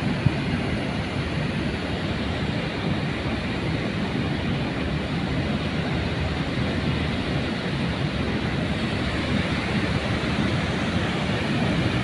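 Steady rush of river water pouring over the rim of a large circular weir, an even, continuous roar of falling water.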